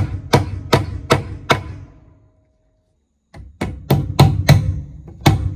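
Hammer driving nails through a steel rafter hanger into a wooden rafter, with steady blows about two and a half a second. The blows stop about two seconds in, and after a second of silence a second run of hammering starts.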